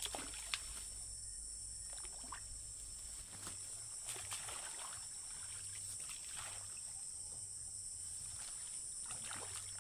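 A steady high insect drone, with irregular rustling of weeds and small splashes as plants are pulled and dragged out of a shallow muddy pool.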